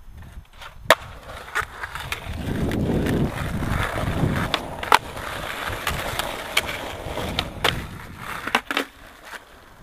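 Skateboard wheels rolling on rough asphalt with a rumble, and several sharp wooden clacks of the board's tail popping and landing.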